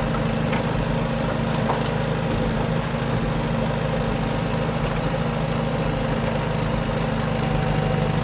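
A vehicle engine running steadily at idle: an even, low drone that holds unchanged throughout, with a few faint clicks.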